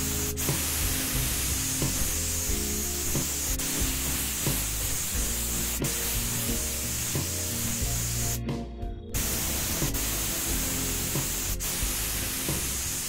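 Steady hiss of spray paint being applied to small diecast model parts, stopping briefly about eight seconds in, over background music.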